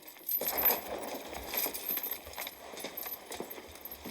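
Irregular knocks and clatter.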